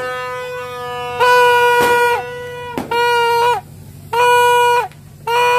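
Torotot, the Filipino New Year's party horn, blown in about five blasts of half a second to a second each, every blast one steady nasal tone that sags in pitch as it ends. Two sharp pops cut in about two and three seconds in.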